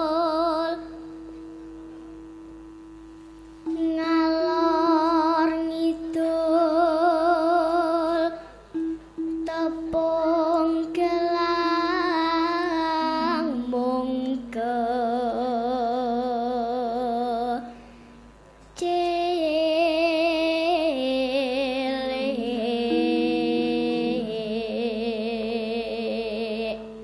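A young girl singing Javanese sinden vocal through a microphone and PA, in long held notes with heavy vibrato, over a steady lower sustained tone. The singing breaks off about a second in and again about two-thirds of the way through.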